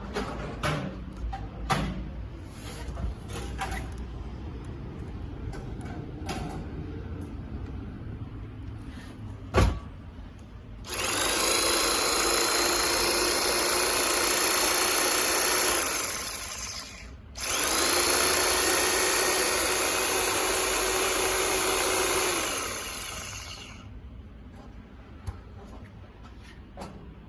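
RYOBI HT-3012A electric hedge trimmer test-run. After a few handling clicks and a sharp knock, the motor and cutting blades run steadily for about five seconds, stop briefly, then run again for about five seconds and wind down.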